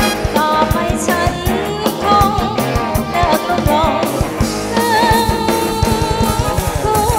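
Live Thai ramwong dance band playing: a woman singing over saxophone, trumpet, drum kit and conga drums with a steady beat, heard straight from the band's mixing desk.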